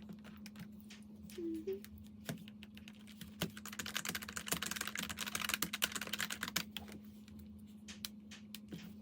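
Typing on a computer keyboard: scattered key clicks, then a quick run of rapid keystrokes from about three and a half seconds in to nearly seven seconds, then scattered clicks again. A steady low hum runs underneath.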